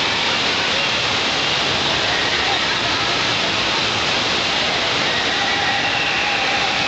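Steady rush of water running down water slides and splashing into a shallow pool, with faint children's shouts in the background.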